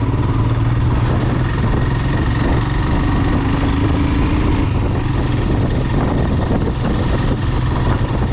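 Motorcycle engine running steadily on the move, with a steady low hum and a haze of road and wind noise over it.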